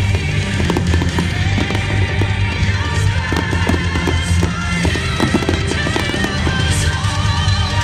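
Fireworks bursting and crackling many times in quick succession, over loud music with a heavy, steady bass.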